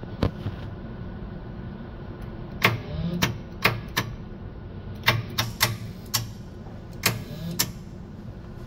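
A relay on a Lektro AP8600 electric aircraft tug clicks about a dozen times at irregular intervals, with brief low hums between some of the clicks. The relay is cutting in and out intermittently.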